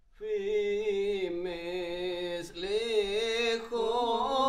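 A single voice chanting a slow, ornamented melody unaccompanied, its pitch wavering and sliding through long held notes, in three phrases with short breaks between them.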